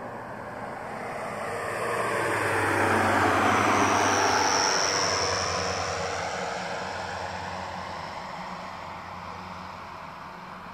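Twin-engine widebody jet airliner on final approach with landing gear down, passing close overhead: engine noise swells to a peak about four seconds in and then fades, its engine whine dropping in pitch as it goes by.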